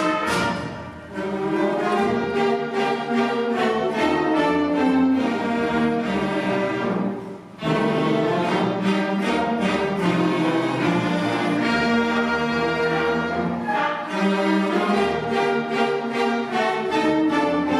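Middle school honor concert band playing a full-ensemble passage of woodwinds and brass. The band drops away briefly about seven seconds in, then comes back in together.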